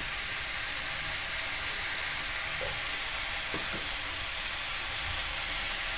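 Mixed vegetables (sliced gourd and potato) frying in hot oil in a kadhai, a steady even sizzle.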